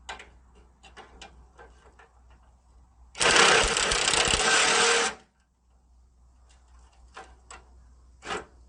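A handheld power tool runs in one loud burst of about two seconds, working on a rusted factory bolt, amid light clinks and knocks of hand tools on metal.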